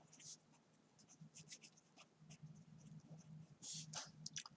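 Pen writing on paper: quiet, scratchy strokes of handwriting in quick, uneven succession.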